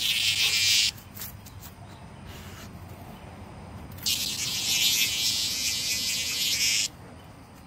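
A cicada buzzing in two loud bursts: a short one of under a second at the start, and a longer one of about three seconds beginning about four seconds in. This is the on-and-off buzz of a disturbed cicada being pawed and nosed by a dog.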